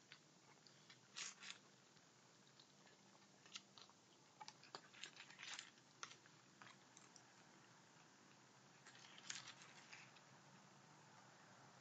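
Raccoons chewing dry pet-food kibble from a plate: faint, scattered crunches that come in short clusters.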